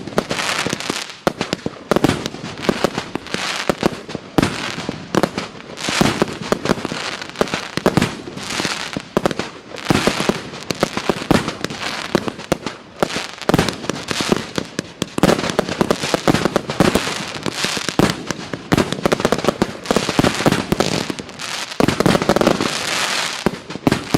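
A 100-shot, 1.2-inch-calibre consumer fireworks cake firing: launches and aerial bursts follow one another several times a second without a break, with crackling.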